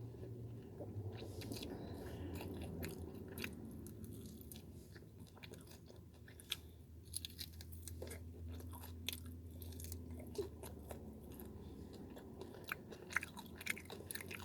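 A person chewing a chicken wing close to the microphone, with soft crunches and many short wet mouth clicks, over a faint low hum.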